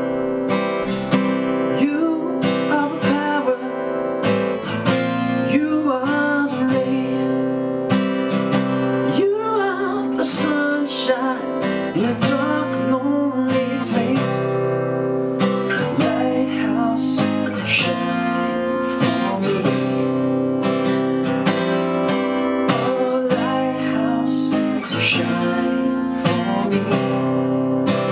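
Acoustic guitar strummed and picked in a steady rhythm, with a man singing along.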